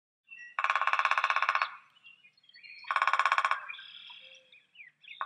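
Downy woodpecker sound: bursts of rapid, even pulses, each about a second long, coming twice with a short gap and starting again near the end.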